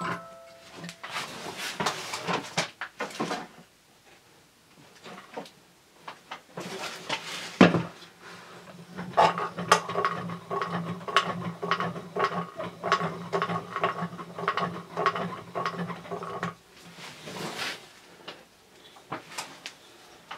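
Hand-cranked wooden automaton being turned: its wooden crank, cams and moving parts clack and rattle in a steady run of small clicks over a low drone, with one sharp wooden knock early on. At the very start the last notes of a music-box movement fade out.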